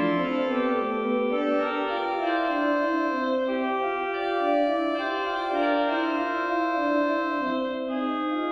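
Merklin pipe organ (1889) playing soft, sustained chords, with an inner voice moving slowly note by note beneath held upper notes.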